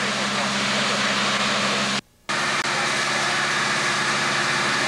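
Steady engine hum under a loud, even hiss, as from a fire engine's engine and pump running while hose streams spray water. The sound cuts out for a moment about two seconds in, at an edit, then carries on.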